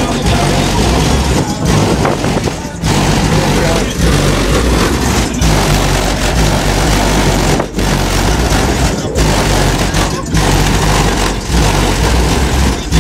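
Car audio system's subwoofers playing bass-heavy music at very high volume, the deep bass overloading the recording, with the sound dipping briefly about every 1.2 s in time with the beat.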